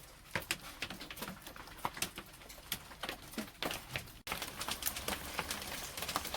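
Hailstones striking, a scatter of sharp irregular clicks that becomes a denser, louder pattering a little over four seconds in as the hail comes down in massive chunks.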